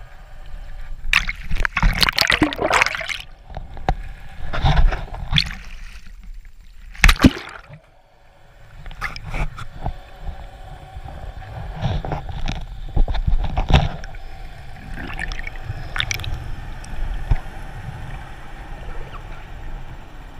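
Water sloshing and gurgling against an underwater camera in irregular bursts, over a low rumble.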